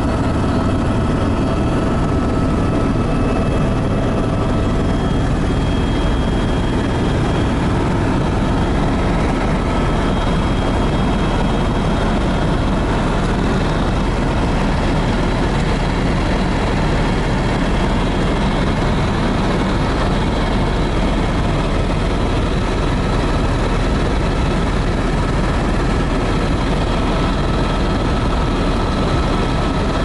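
Helicopter engine and rotor noise heard inside the cabin: a steady, unbroken drone with a few faint, steady high whines above it.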